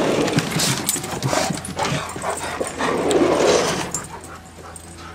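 Several dogs whining and yipping excitedly as they rush out through a door, with scattered knocks, loudest for the first four seconds and then quieter.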